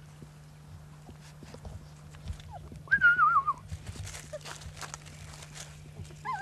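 Brittany puppy giving a short, wavering whine about halfway through that falls in pitch, amid scattered rustling and scuffling.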